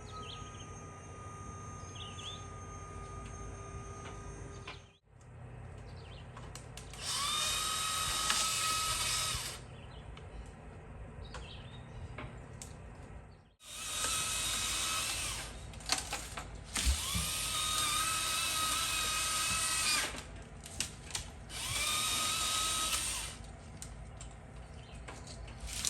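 Chainsaw running at a steady high pitch, then revved in four bursts of a few seconds each, every burst climbing quickly to a steady high whine and cutting off, with quieter running between.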